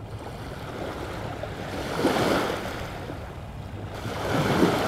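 Small waves washing onto a sandy lake beach, surging up about two seconds in and again near the end, with light wind rumbling on the microphone.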